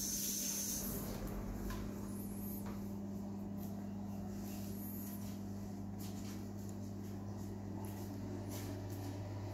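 Steady low electrical hum, with faint high squeaks about two and five seconds in.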